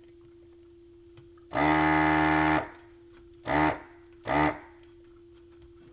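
Electric desoldering gun's vacuum pump buzzing, once for about a second and then twice briefly, sucking the last solder off a transistor's legs so it can be pulled from the circuit board.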